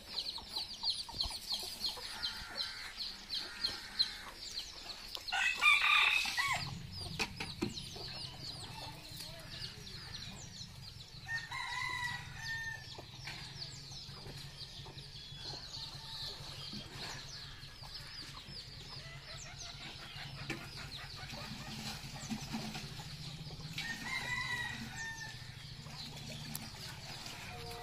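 Village chickens: a rooster crows once, loudly, about six seconds in, with fainter crowing or clucking around twelve and twenty-four seconds, over rapid high chirping in the first few seconds. A low steady hum sets in just after the loud crow.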